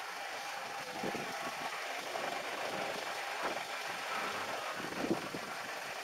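Car engine idling while stopped in traffic, a steady low running sound heard from an open-top car.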